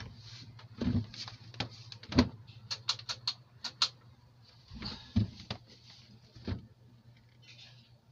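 A run of light clicks and knocks from soldering tools being handled on a workbench, loudest about two seconds in, with a quick cluster of sharp ticks around three seconds. A steady low electrical hum runs underneath.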